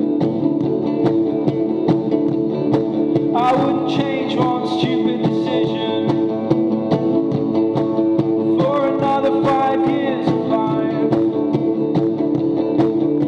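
Electric guitar strumming sustained chords in a steady rhythm, with a man singing two phrases over it, starting about three and a half and eight and a half seconds in.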